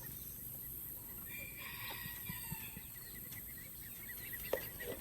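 Chickens calling faintly in the background, with one drawn-out call about a second and a half in.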